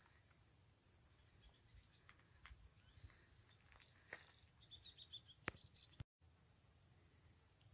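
Faint, steady, high-pitched trilling of insects, with a few faint bird chirps around the middle. A single sharp click comes about five and a half seconds in, and the sound cuts out for a moment just after six seconds.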